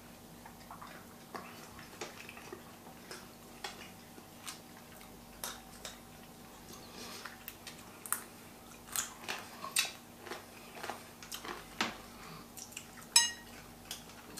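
Boiled crayfish shells cracking and snapping as they are broken and peeled by hand: irregular sharp clicks, sparse at first and coming more often after about halfway. Near the end there is a single ringing clink of a glass or plate.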